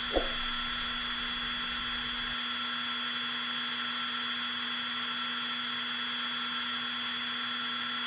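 Steady whine of a hovering camera drone's motors and propellers, holding one pitch with no change in speed.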